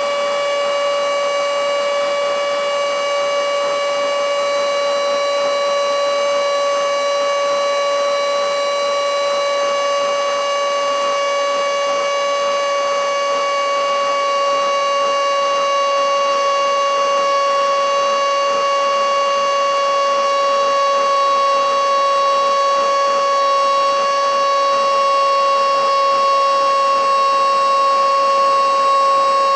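Mini handheld blowing/sucking vacuum cleaner's small high-speed motor running with a steady, loud whine whose pitch sinks slowly. Its battery is near the end of a roughly ten-minute charge, and the motor is running with reduced power.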